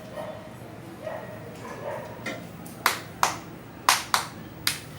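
Sharp open-hand slaps of an Indian head and back massage: one light slap, then five loud ones spread unevenly over the last three seconds.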